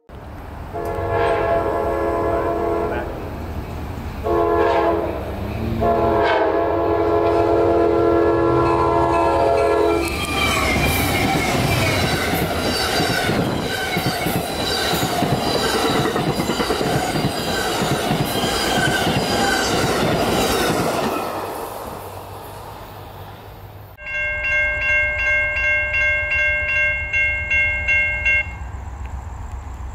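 An Amtrak passenger train's locomotive air horn sounds a series of blasts ending in a long one, the grade-crossing warning, and then the train rushes past with its wheels clattering over the rail joints. After a cut, a grade-crossing bell rings quickly, about three strokes a second, and stops.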